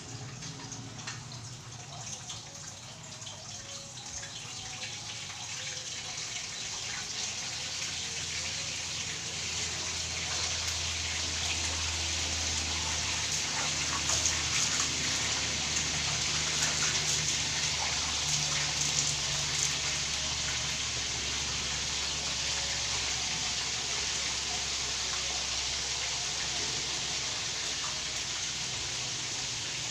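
Chicken pieces frying in hot oil: a steady sizzling hiss speckled with small crackles and pops, growing louder over the first several seconds and then holding steady.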